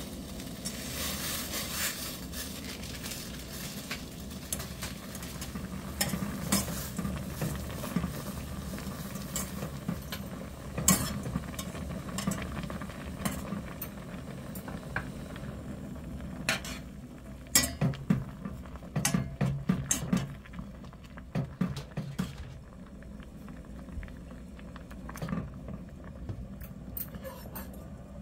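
Water boiling in a stainless steel pot, a steady bubbling, with scattered sharp clinks and knocks of utensils against the pot that come more often in the second half.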